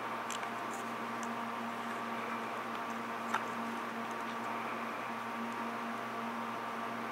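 Steady hiss with a faint, even electrical hum and whine, and a single small click about three seconds in.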